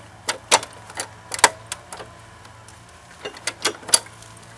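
Sharp, irregular mechanical clicks and knocks from a Simson SR50 scooter as one of its parts is worked. There are about seven in the first two seconds, a pause, then four more a second before the end.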